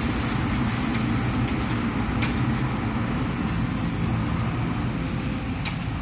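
Heavy diesel construction machinery running steadily with a low drone, with a couple of faint clicks or knocks, one about two seconds in and one near the end.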